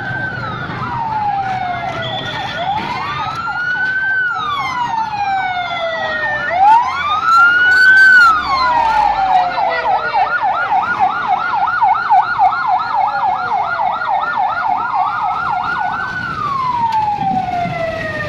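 Fire engine sirens: a slow wail rising and falling about every four seconds, joined about six seconds in by a second siren on a fast yelp of about four sweeps a second, which stops near the end.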